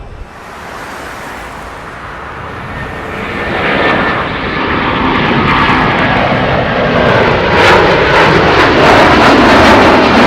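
Jet engines of an Airbus A330 freighter growing louder over the first few seconds as the aircraft approaches, then staying loud as it passes, with a tone that slides down in pitch.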